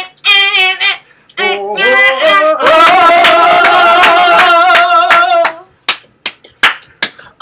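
A woman singing short wordless phrases, then holding one long note with a wavering vibrato. Near the end come about five sharp, separate hand claps.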